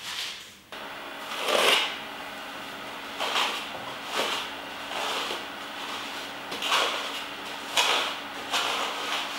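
Clothing rustling and rubbing in a series of short swells, roughly one a second, as a person moves his raised arm, over a faint steady hum.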